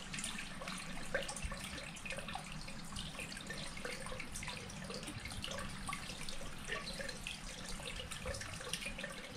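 Water running out of a pond's plastic exit pipe and trickling over stones in the channel below, a steady splashing. The pond has risen high enough to flow out through the exit pipe.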